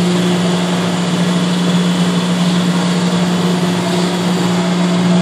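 1966 Cleaver Brooks oil-fired boilers running in their boiler room: a steady mechanical drone with a constant low hum over an even hiss.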